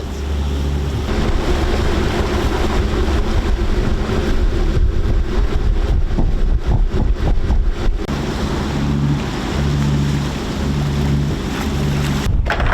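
Wind buffeting the microphone aboard a moving sailing catamaran, with water rushing past the hulls and a low steady drone underneath. The sound breaks off abruptly near the end.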